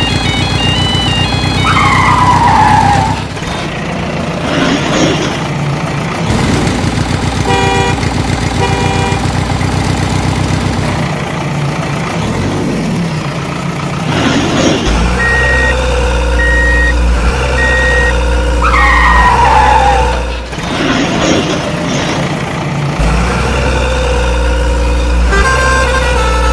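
Dubbed-in truck sound effects: a steady engine rumble with short horn toots, a row of evenly spaced beeps, and two falling swoops.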